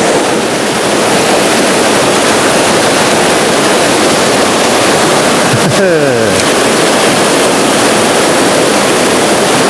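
Rushing water of a fast mountain trout stream, a loud, steady hiss.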